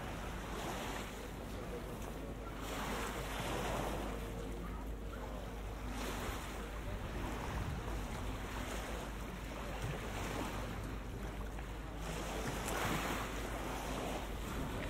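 River water washing against the waterfront edge in surges every few seconds, with wind.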